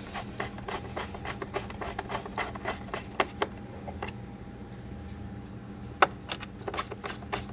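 Quick irregular clicking and tapping of hard plastic parts being handled and fitted together during reassembly of a pool cleaner, a few sharper clicks among them, over a steady low hum.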